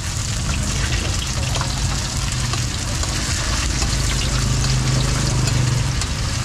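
Garlic chive cakes shallow-frying in a pool of oil on a wide, flat round pan: a steady sizzle full of fine crackles. A low steady hum runs underneath, growing stronger about four seconds in and easing near six seconds.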